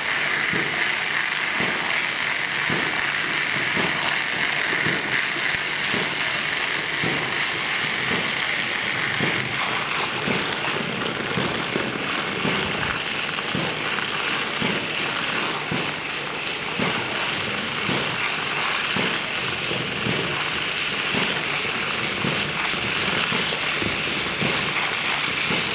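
Steady hiss of foam spraying from a hand-held lance nozzle, mixed with a continuous scatter of small crackles.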